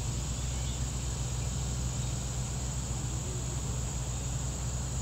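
Steady high-pitched insect chirring over a constant low rumble, with no distinct events.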